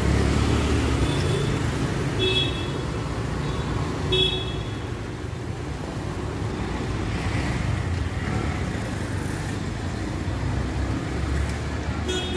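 City street traffic, a steady low rumble of engines and tyres, with short car-horn toots: two a couple of seconds in, another about four seconds in, and one near the end.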